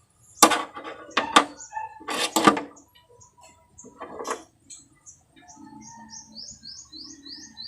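A few sharp clacks and a rattle of handling in the first couple of seconds, one softer knock about four seconds in, then a small bird chirping in a quick run of short, falling notes near the end.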